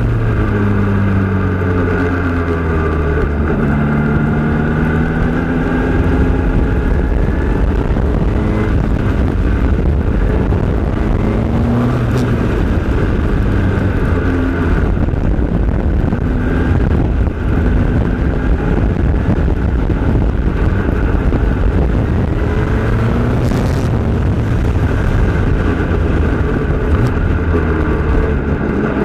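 Formula Renault 2.0 single-seater's two-litre four-cylinder engine at racing speed, heard onboard: its pitch climbs through the gears, breaks at each shift and drops when the car slows, over a steady rush of road and wind noise.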